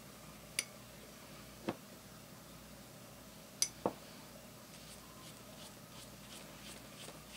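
Quiet room tone with four light clicks and taps from a paintbrush being handled at the table, the last two close together.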